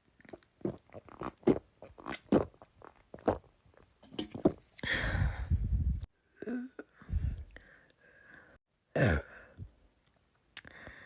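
A person gulping down the rest of a can of soda in a quick run of swallows, about three a second. This is followed by a long, low burp about five seconds in and two shorter ones later.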